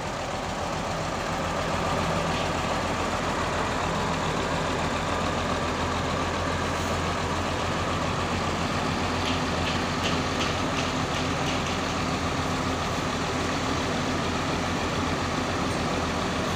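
Large diesel bus engine idling steadily: a constant low hum with no change in speed.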